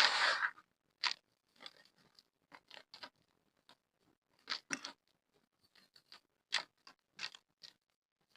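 Hard, gritty black mud crumbling and crunching: one loud, grainy crunch at the start, then scattered short crackles of breaking pieces with quiet gaps between.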